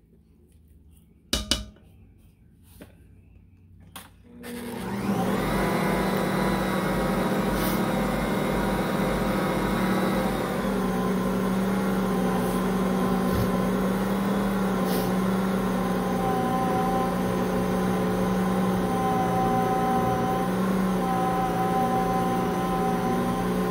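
A few clicks, then an Ankarsrum stand mixer's motor starts about four seconds in and runs steadily with an even hum. It is turning the bowl to knead honey wheat bread dough under the dough hook.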